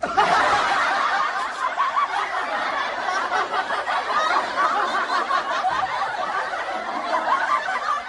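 A group of people laughing, a dense, continuous mix of voices that starts abruptly and carries on steadily.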